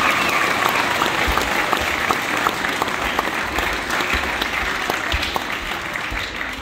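Audience applauding, a dense mass of claps that dies down near the end.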